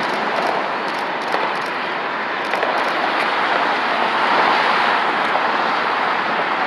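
Steady road noise of multi-lane expressway traffic, tyres and engines passing continuously, with a commuter train pulling away in the background.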